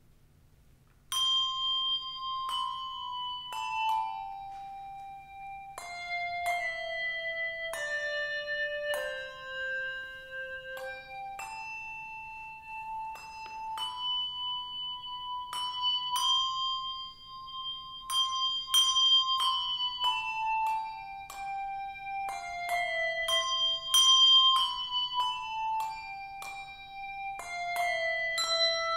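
Handbell choir playing a carol melody in single ringing bell notes, each left to ring on. It starts about a second in with a slow descending scale, then the tune climbs and falls again.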